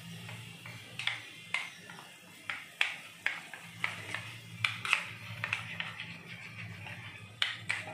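Metal spoon clinking against a small ceramic bowl at irregular intervals, stirring gram flour into curd, over a steady low hum.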